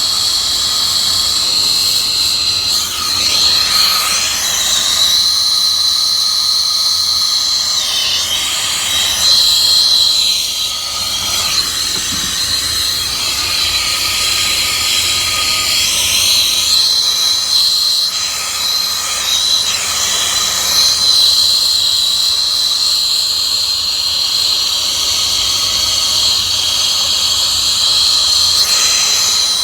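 Air-acetylene turbo torch with a number 5 tip burning steadily while sweating a joint on 3-inch copper pipe: a loud, even hiss with a steady high whistle running through it.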